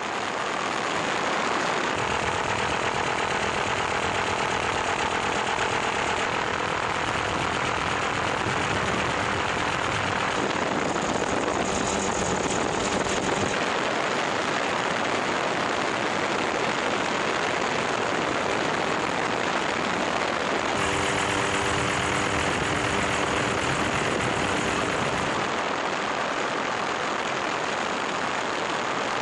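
Helicopter in flight: steady engine and rotor noise. Its tone changes abruptly several times.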